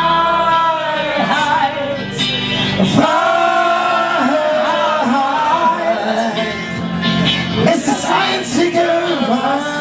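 Live band with a group of male and female singers singing together into microphones, holding long notes.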